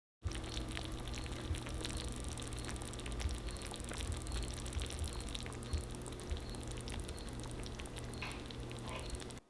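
Bacon lasagna sizzling in its baking dish: a dense, steady crackle of hot fat and bubbling cheese over a low, even hum.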